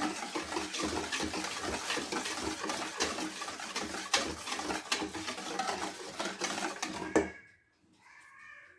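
Cake batter being beaten in a mixing bowl: rapid, continuous clattering that stops abruptly about seven seconds in.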